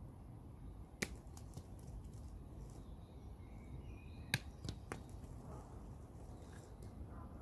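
A few sharp clicks over a faint, steady low background rumble: one about a second in, the loudest a little past four seconds, then two smaller ones close after it.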